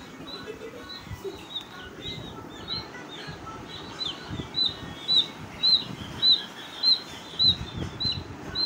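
A chick peeping: a regular run of short, high-pitched peeps, about two a second, growing louder about halfway in.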